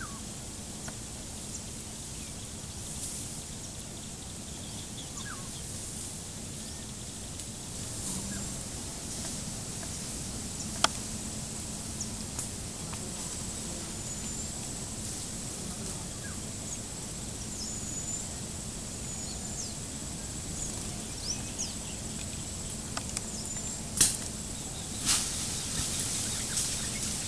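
Outdoor ambience of grassland and scrub: a steady hiss with a thin, steady high whine and faint bird calls. A few sharp clicks stand out, the loudest about 11 and 24 seconds in.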